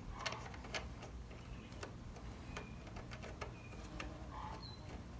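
Faint, irregular light clicks and taps, about seven in five seconds, as small metal terminal hardware and hand tools are handled while wiring a mower's starter solenoid.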